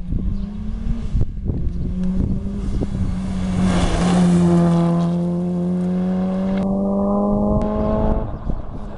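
Mitsubishi Lancer Evolution rally car's turbocharged four-cylinder engine passing close at speed. The sound is loudest about four seconds in and drops in pitch as the car goes by, then a steady, slowly rising note follows as it accelerates away.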